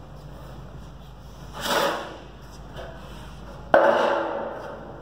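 Sheet metal rattling and clanking at a 10-foot manual bending brake: a swelling rattle about two seconds in, then a sudden clank just before four seconds that rings out for about a second.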